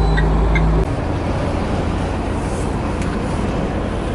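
Steady engine and road noise inside a truck cab at highway speed. A louder low drone cuts off abruptly about a second in.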